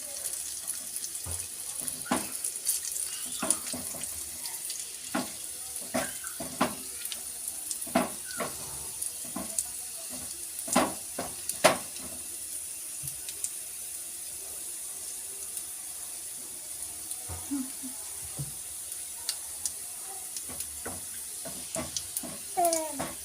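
Ajwain (carom seeds) and garlic cloves frying in hot mustard oil: a steady sizzle with irregular pops and crackles, a cluster of louder pops about halfway through. The seeds and cloves are being cooked in the oil until they turn dark brown.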